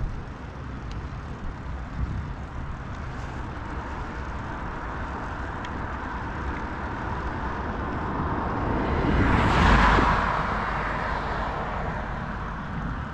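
A vehicle passing by: its noise swells to a peak about ten seconds in and fades away again, over a steady low rumble.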